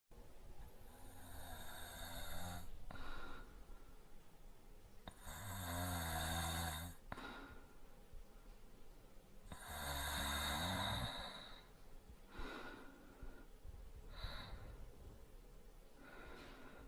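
A sleeping man snoring lightly: three snoring breaths in, about four seconds apart, each followed by a softer breath out, with only quieter breathing in the last few seconds.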